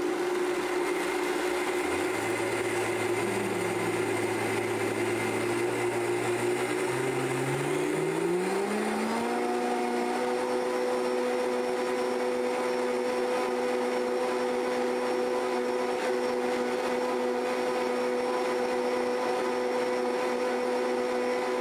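Vitamix high-speed blender grinding dry rolled oats into flour. The motor's pitch climbs over the first nine seconds or so as the speed is turned up, then it runs steady at high speed, and it starts to wind down at the very end.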